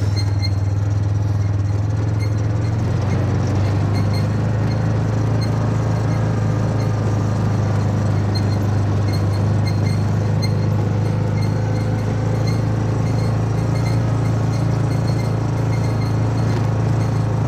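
A vehicle's engine running steadily under way, a continuous low drone whose pitch shifts slightly about three seconds in.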